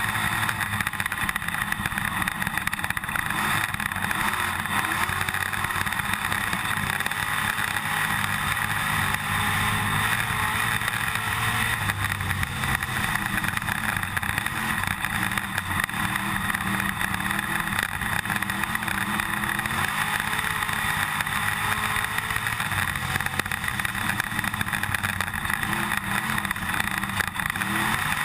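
IMCA dirt-track stock car's V8 engine running at racing speed, heard from inside the cockpit, its pitch rising and falling a little as the laps go by. A constant rattle runs over it.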